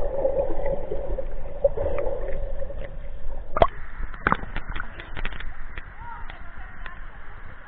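Pool water gurgling and sloshing around a waterproof camera dunked under the surface, muffled at first. After it comes up, a scattering of sharp ticks of water drops follows and the sound fades toward the end.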